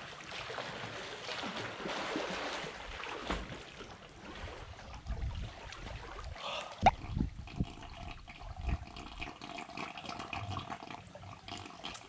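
Pool water splashing and lapping as a swimmer does breaststroke, with one sharp knock about seven seconds in.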